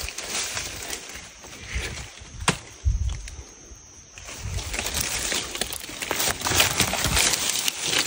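Footsteps crunching irregularly through dry leaf litter and undergrowth, pausing briefly about three seconds in, with one sharp click or snap just before the pause.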